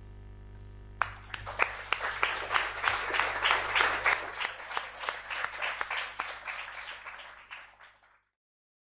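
A small audience applauding: the clapping starts sharply about a second in, swells, thins out and then cuts off abruptly near the end.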